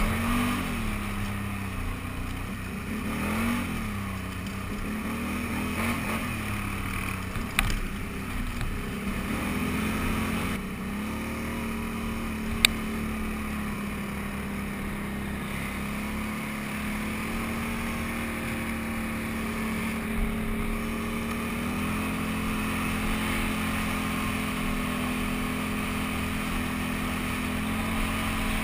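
Can-Am Renegade 800 ATV's V-twin engine running under way on a trail, its pitch rising and falling with the throttle for the first ten seconds or so, then holding steady, with a small step up about three quarters of the way through. Two sharp clicks stand out, about a quarter and about halfway in.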